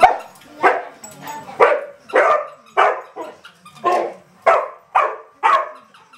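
A dog barking in short, sharp barks, about nine in a row, roughly one every half second to a second.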